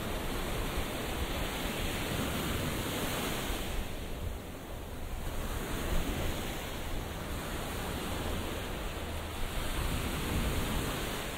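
Sea surf washing onto the beach: a steady rush of breaking waves that eases briefly about four seconds in.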